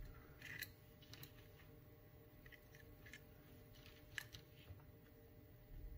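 Near silence with a few faint, sharp clicks and rustles of thin wire leads being handled and bent by hand, the clearest click a little past the middle.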